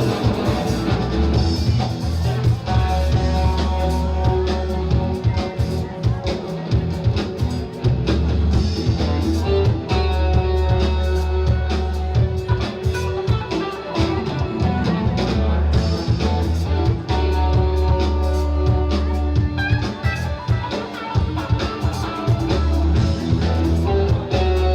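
Rock music with guitar, bass and a drum kit playing steadily, with strong bass notes and regular drum hits.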